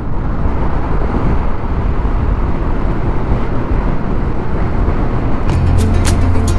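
Wind and road noise from riding a small-wheeled TVS scooter at highway speed, a steady rushing noise. About five and a half seconds in, background music with low steady notes and sharp beats comes in over it.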